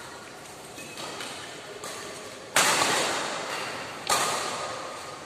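Badminton rackets hitting a shuttlecock during a doubles rally: a couple of softer hits, then two sharp, loud hits about a second and a half apart, each ringing on in the hall's echo.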